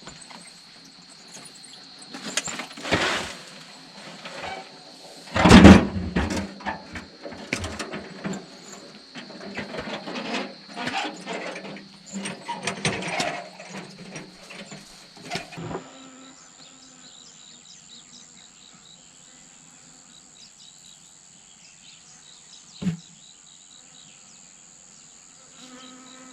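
A steady high-pitched insect drone, with irregular knocks and clatter over it for the first half, the loudest thump about five seconds in. Partway through the clatter stops and a higher-pitched insect drone carries on, broken by a single knock near the end.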